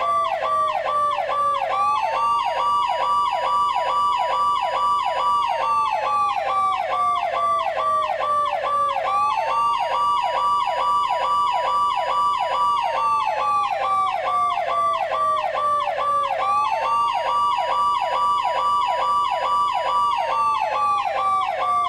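Siren sound effect of the Seibu Keisatsu Machine RS police cars: two sirens layered. One is a fast warble that sweeps downward about four times a second. The other is a slow wail that rises quickly, holds for a few seconds, then falls slowly, and repeats about every seven seconds.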